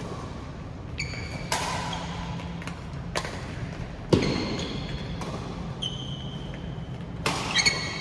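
Badminton rally: several sharp cracks of rackets striking a shuttlecock, the loudest about halfway through, with short high squeaks of shoes on the court floor in between, echoing in a hall.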